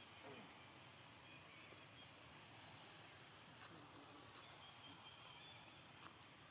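Near silence: faint outdoor forest background, with a thin steady high hum and a few soft clicks.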